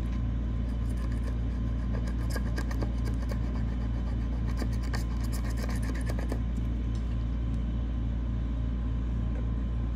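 Scratch-off lottery ticket being scraped with a small metal tool: a run of quick, dry scratching strokes that stops about six seconds in. A steady low hum runs underneath.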